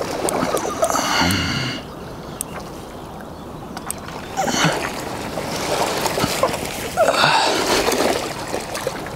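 A hooked carp splashing at the water's surface close in as it is brought to the bank, in three bursts separated by short quieter gaps.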